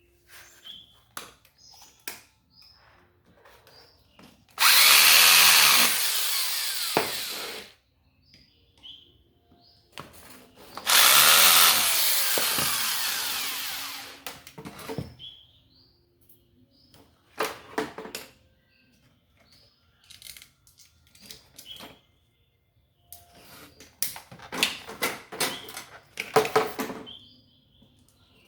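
Small electric drill running in two bursts of about three seconds each, starting abruptly and fading off, with light clicks and knocks of handling metal parts in between.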